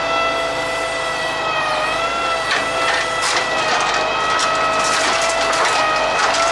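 Truck-mounted knuckle-boom crane's hydraulics whining steadily, the pitch sagging briefly as it takes load, while its scrap grapple closes on a pile of wooden pallets: from about two and a half seconds in, a run of sharp cracks as the wood snaps and splinters.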